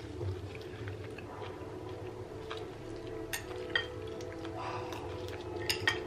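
Metal spoons clinking a few times against ceramic bowls during eating, over a faint steady background of music.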